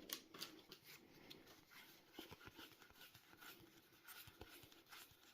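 Near silence with faint, scattered small clicks and rustles of Pokémon trading cards being handled and flipped through.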